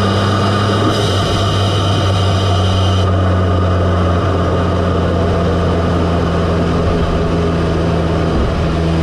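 Audi S3's turbocharged 2.0-litre four-cylinder running at a steady speed, heard up close through an APR carbon fibre open intake with an exposed cone filter: a steady induction hum, with a high whine that fades out about three seconds in.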